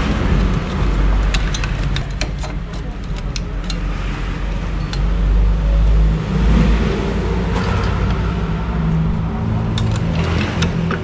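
Small clicks and rattles of plastic connectors and a compressor terminal cover being handled, over a steady low rumble.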